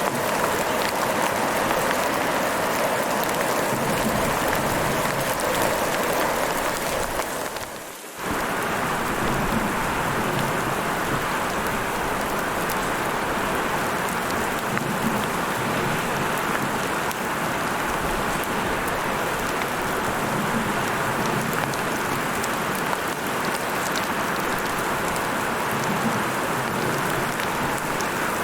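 Heavy rain falling steadily, a dense even hiss. It fades out briefly about eight seconds in, then cuts straight back in at full level.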